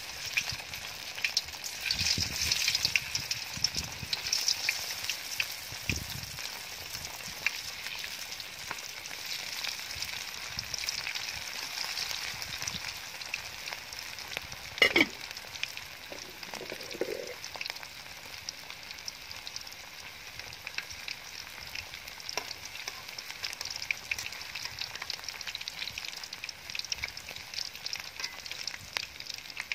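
Hot oil sizzling and crackling in a metal wok as shrimp-topped bread slices deep-fry, louder in the first few seconds. A single sharp click comes about halfway through.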